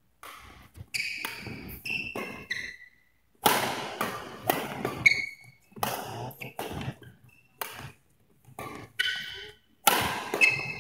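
Badminton doubles rally: a quick string of sharp racket-on-shuttlecock hits, one after another, echoing in a large hall, with short high sneaker squeaks on the court floor between them.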